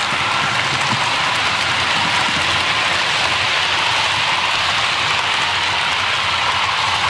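Model InterCity 125 (Class 43 HST) train running past close by on the layout track: a steady rushing rattle of its wheels and motor.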